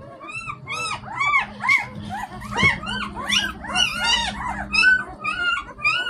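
A litter of one-week-old puppies squeaking and whining as they jostle to nurse: many short, high, rising-and-falling squeaks overlapping, several a second.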